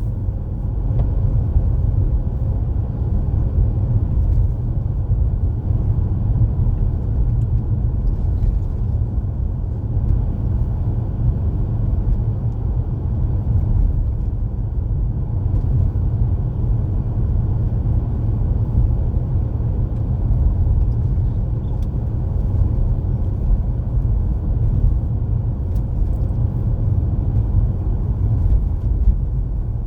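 Steady low rumble of a car driving on a snowy road, heard from inside the car: engine and tyre noise.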